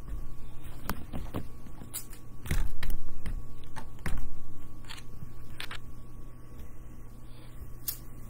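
Handling noise from the recording phone or camera being picked up and repositioned: irregular knocks, clicks and rubbing, loudest about two and a half seconds in and again about four seconds in, over a steady low hum.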